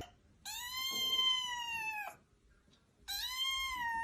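A cat giving two long, drawn-out meows, each about a second and a half and held at a steady high pitch, dipping at the end; the second starts about three seconds in.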